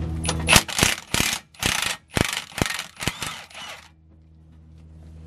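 A ratchet wrench clicks in a series of short bursts as it backs out one of the 18 mm bolts holding the front strut to the steering knuckle. The ratcheting stops about four seconds in.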